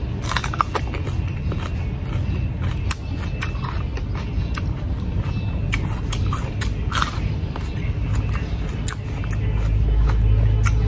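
Crisp crunching and chewing of raw cucumber, with many short sharp cracks as it is bitten. Under it runs a steady low rumble that swells near the end.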